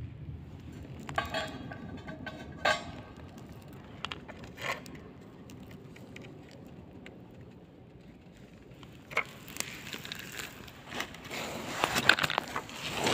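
Handling of scrap metal pieces: a rusty steel ring knocked against a steel disc rings briefly about a second in, followed by a few sharp clicks and then a run of crackling, clattering clicks near the end.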